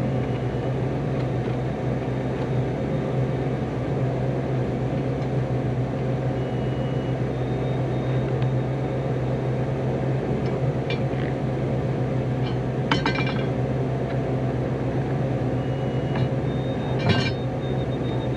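A boat engine running steadily with a low drone, with a few light clinks about 11, 13 and 17 seconds in.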